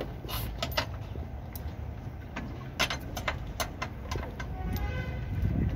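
Scattered sharp metallic clicks and taps of hand tools working on a car's front suspension in the open wheel arch, over a steady low rumble.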